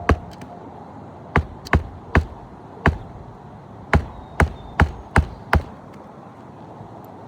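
Hammer blows, about ten sharp strikes in uneven runs that stop a little past halfway: nailing a roof shingle back down.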